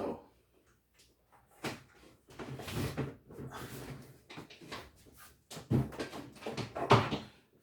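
Clunks and knocks of a compact refrigerator's door and compartments being opened and handled, several separate bumps with the loudest near the end.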